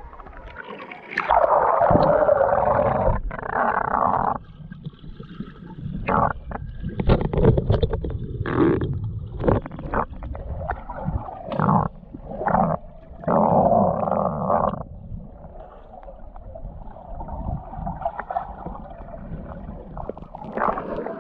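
Muffled underwater water noise from a camera moving through the water: rushing and gurgling with sharp knocks and splashes, loudest in two long surges, about a second in and again about two-thirds of the way through.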